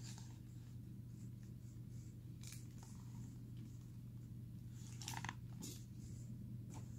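Faint rustling of a hardcover picture book's paper pages and cover being handled, a few brief rustles over a steady low hum.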